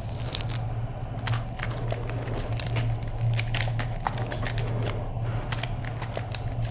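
Gore sound effect: dense, irregular crackling clicks over a steady low hum.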